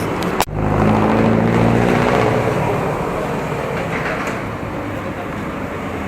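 Road traffic: a motor vehicle's engine running close by, loudest for the first couple of seconds and then fading into steady traffic noise. A sharp click comes about half a second in.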